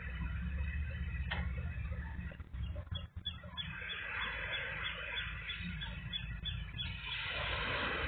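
Wind rumbling on the microphone with a steady hiss over it. The noise dips briefly about three seconds in.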